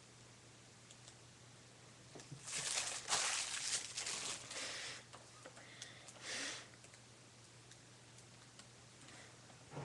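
Rustling and handling noise close to the microphone as a person moves back in front of the webcam, loudest from about two and a half to five seconds in, with a shorter burst about six seconds in. A faint low hum continues underneath.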